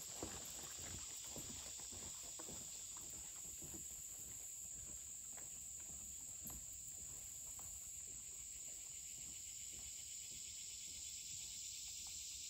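Steady high-pitched insect chorus, with faint footsteps on wooden boardwalk planks that fade as the walkers move away.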